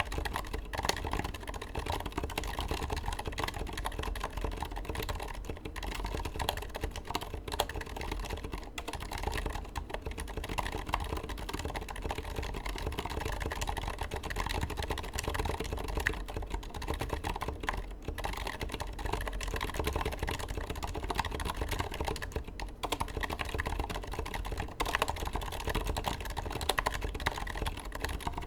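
Continuous fast typing on a Leopold FC980M mechanical keyboard with Aqua Zilent silent tactile switches and MT3 keycaps: a dense, irregular stream of quiet, muted keystrokes.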